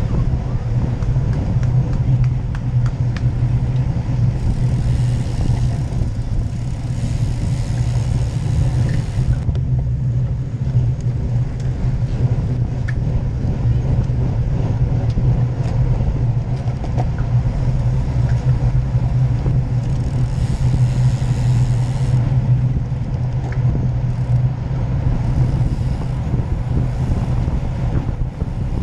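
Steady wind noise and tyre rumble on a road bicycle's camera microphone while riding in a race pack, with a brighter rush of wind twice, the longer one about five seconds in.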